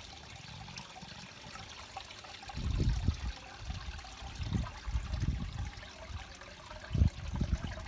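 Water from a pipe outlet splashing and trickling steadily into a garden fish pond. From about two and a half seconds in, irregular low rumbles come and go, loudest near the end.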